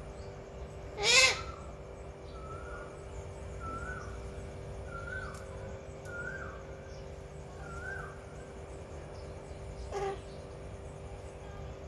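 Rose-ringed parakeet giving one loud, harsh squawk about a second in, followed by a run of softer repeated calls about a second apart and another short call near the end.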